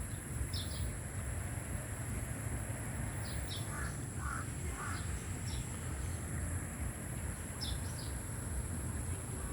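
Outdoor ambience: birds chirping repeatedly, with a bird giving three short calls about four seconds in, over a steady high-pitched insect drone and a low rumble.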